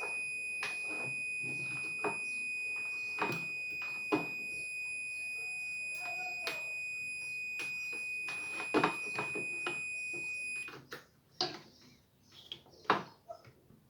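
A multimeter's continuity beeper sounding one steady high tone while the probes read about two ohms, a connection that conducts; it cuts off suddenly about ten and a half seconds in. Clicks and knocks of probes and parts being handled run through it, with a few sharp taps near the end.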